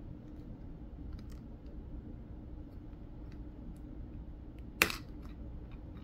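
Plastic Lego pieces clicking against each other as a fence piece is fitted onto a studded plate: a few faint ticks, then one sharp snap about three-quarters of the way through.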